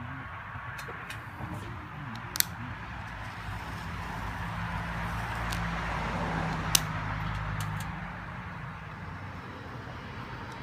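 A low engine hum, like a passing motor vehicle, swells and then fades over about four seconds in the middle, over a steady hiss, with two sharp clicks.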